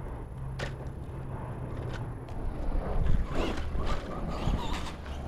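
Handling knocks and low rumble as a radio-controlled truck is handled and put back down on asphalt, then a short rising whine from the truck's motor a little past three seconds in.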